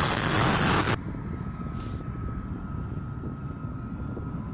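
An F-35A Lightning II's Pratt & Whitney F135 jet engine at full takeoff power, loud, which cuts off abruptly about a second in. A quieter low rumble with a faint steady whine follows.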